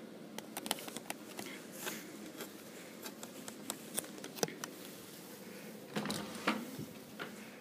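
Scattered light clicks and taps, with a couple of louder scuffs about six seconds in, from someone walking through an empty room with a handheld camera: footsteps and camera handling noise.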